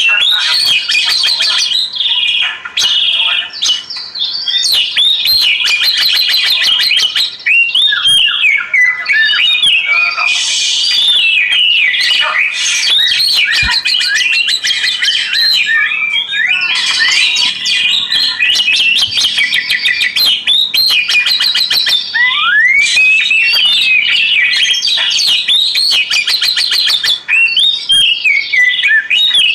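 Oriental magpie-robin singing a long, varied song without a break: rich whistled phrases, rapid trills and rising and falling glides.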